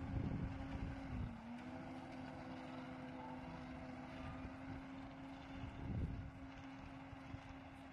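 Diesel engine of a self-loading concrete mixer running with a steady drone as the truck drives along a dirt road, its pitch dipping briefly about a second in. Low gusts of wind rumble on the microphone at the start and again around six seconds in.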